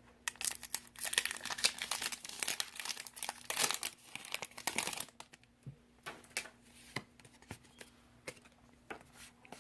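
Pokémon TCG booster pack's foil wrapper crinkling and tearing as it is opened, dense for about five seconds, then lighter rustles and clicks of handling.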